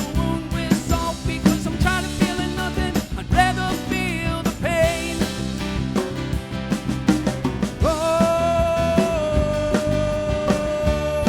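Live band music: an instrumental passage with a lead melody of quick bending notes over steady accompaniment, then one long held note from about eight seconds in.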